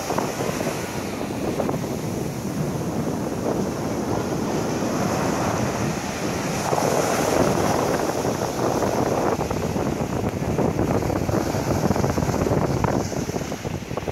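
Ocean surf breaking and washing up a sandy beach, rising and falling with each wave, with wind buffeting the microphone.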